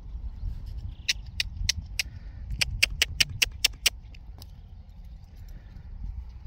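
A quick run of about a dozen sharp, close clicks, coming about five a second at their fastest, over a steady low wind rumble on the microphone.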